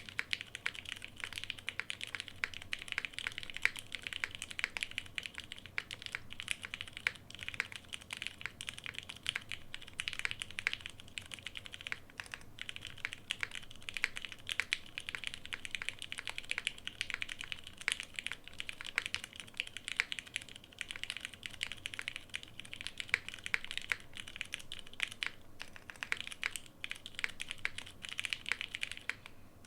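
Continuous typing on a mechanical keyboard with Cherry MX Brown tactile switches, GMK Stealth keycaps and a carbon fibre plate: a dense run of key clicks, pausing briefly twice.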